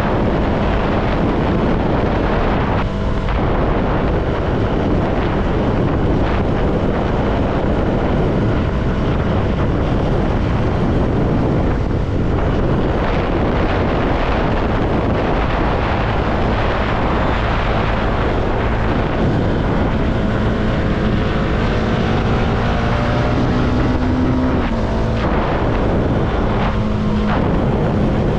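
CFMoto motorcycle engine running under way, mixed with heavy wind rush. Its note climbs for a few seconds near the end, then drops.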